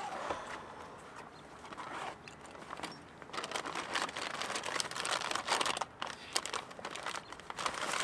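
Rustling and crinkling of something being handled by hand, sparse at first and busy from about three seconds in.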